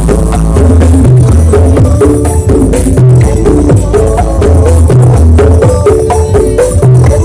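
Very loud bass-heavy 'jedag jedug' dance remix blasting from a truck-mounted sound system, with a deep pulsing bass, percussion and a melody line.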